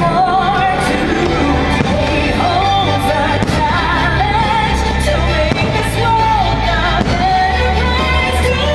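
Fireworks show soundtrack: loud music with a singer carrying the melody over a steady bass, and a few firework bangs breaking through.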